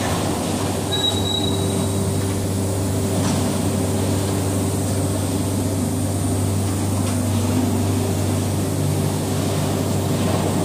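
Machinery of a wood sawdust block production line running steadily: an even mechanical noise with a low hum and a fainter steady whine above it.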